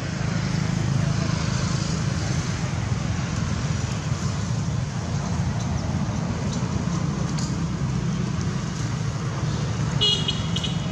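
Steady low rumble of distant road traffic, with a brief high-pitched squeal about ten seconds in.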